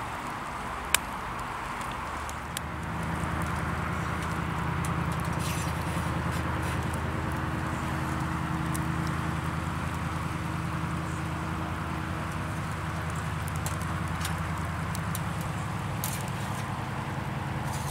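A steady low engine-like hum sets in about three seconds in, over a constant hiss, with a few sharp clicks.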